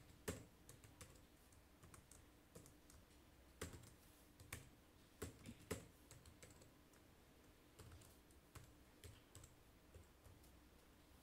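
Faint typing on a computer keyboard: irregular keystrokes in short runs.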